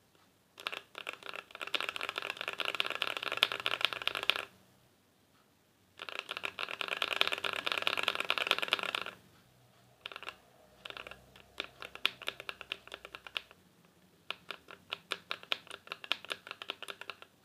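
Typing on a mechanical keyboard with KTT linear switches in a foam- and polyfill-modded Idobao ID80 case. Two runs of fast, dense typing are followed by slower, separate key presses in the second half.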